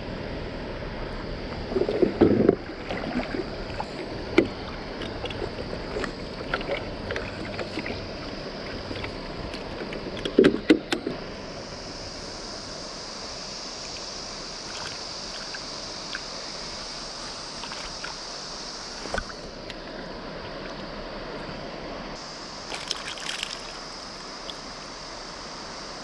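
River water rushing steadily, with a couple of splashy knocks about two seconds in and again about ten seconds in. A high hiss comes in about halfway through, stops briefly and returns.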